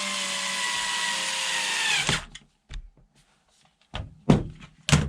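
A small handheld electric screwdriver motor runs for about two seconds, its pitch sagging slightly as it loads up, then stops suddenly. A few sharp clicks and knocks of small plastic parts being handled follow.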